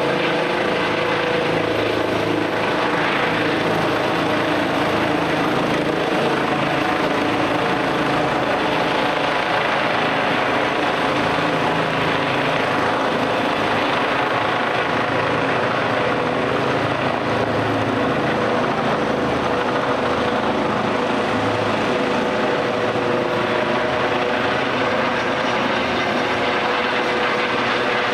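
Air-ambulance helicopter with a ducted fenestron tail rotor lifting off from a rooftop helipad and climbing overhead: a loud, steady turbine whine over the beating of the main rotor.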